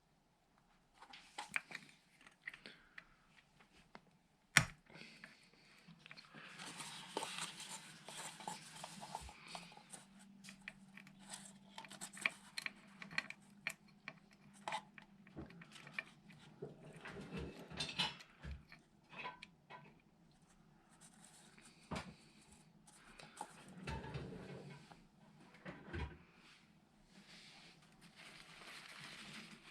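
Faint, scattered clicks, taps and rustles of hand work with small tools and parts, with one sharper knock about four seconds in.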